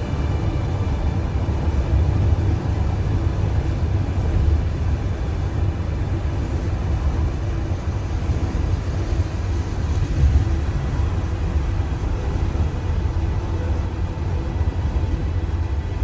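A car driving on the road: a steady, unbroken rumble of engine and road noise, heaviest in the low end.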